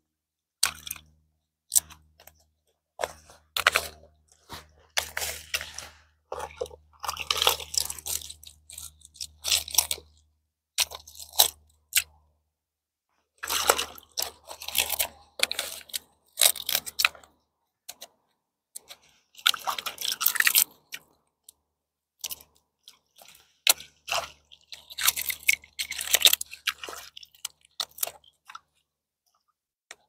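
Mussel shells crunching and clattering in irregular bursts as they are gathered by hand into a bag.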